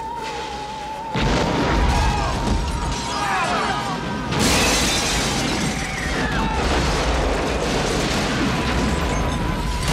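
Film-soundtrack building explosion: a sudden loud blast about a second in and a second, sharper blast about four seconds later, each followed by a long rumble, with music playing under it.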